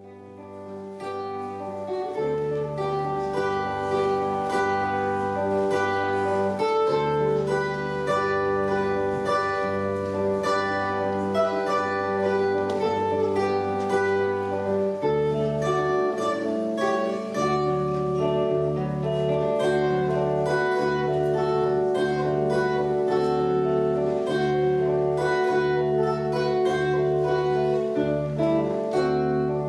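Zither playing an instrumental piece: plucked melody notes over steady held bass notes, swelling in over the first couple of seconds.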